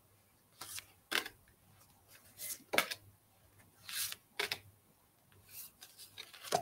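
Glossy oracle cards being slid one by one off a hand-held deck: short, irregular swishes and snaps of card on card, roughly one a second.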